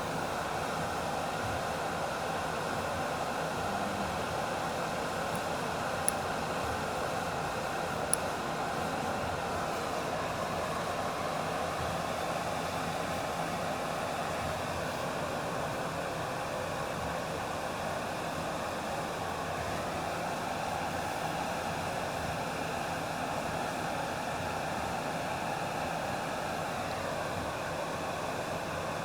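Oxygen-and-gas jeweller's torch burning with a steady hiss while it heats the metal for soldering. Two brief sharp clicks about six and eight seconds in.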